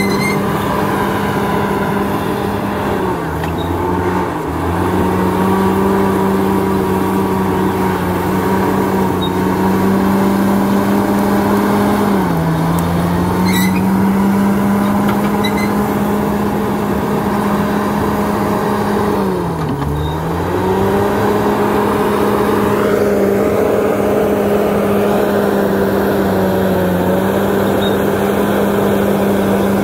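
Crawler bulldozer's diesel engine running steadily at high revs, its pitch dipping briefly three times as it lugs under load pushing earth, then recovering.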